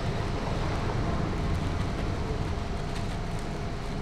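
Steady low rumbling background noise with a faint steady hum, like running machinery or traffic; the flour being poured makes no distinct sound of its own.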